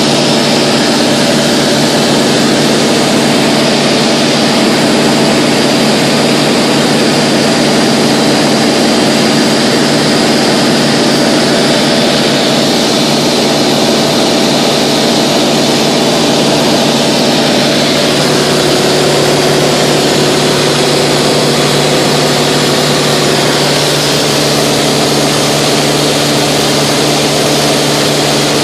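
Mooney 201's four-cylinder Lycoming engine and propeller running steadily at cruise power (55%), heard from inside the cabin with a constant rush of air noise.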